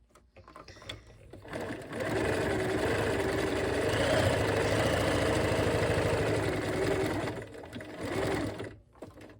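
Bernina 1130 sewing machine stitching a decorative stitch: it starts about a second and a half in, runs steadily for around six seconds, stops, then gives one short burst of stitching.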